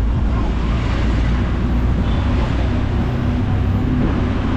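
A bus running on the road, heard from inside the cabin: a steady low engine rumble with road and wind noise.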